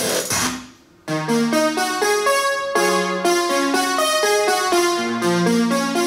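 Music playing from an 808 LXS wireless speaker during a sound test: one track fades out under a second in, and after a short gap a new one starts with electric-piano-like keyboard notes.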